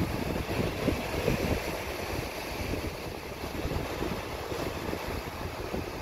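Atlantic surf washing and breaking over granite shore rocks, with wind buffeting the microphone. A little louder in the first two seconds, then steady.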